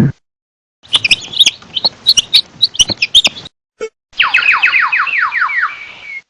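Chickens calling: for a few seconds, many short high chirps, then after a brief pause a quick run of about ten falling peeps.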